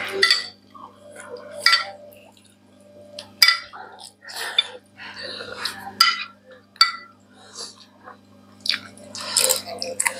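Close-up eating sounds: wet chewing and lip smacks as rice and curry are eaten by hand, with a few short clinks of a metal spoon against a glass serving dish.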